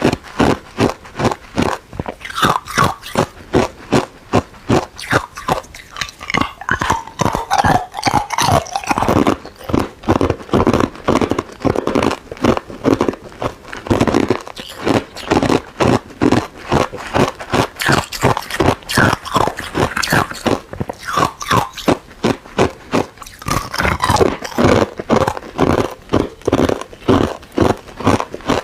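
Hard ice being bitten and chewed close to the microphone: loud, rapid crunching, about three crunches a second.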